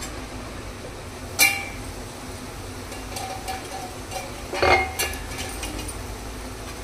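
Stainless steel lid clinking against a steel kadai as it is handled and lifted off: a sharp metallic clink about a second and a half in, and a short cluster of ringing clinks about five seconds in.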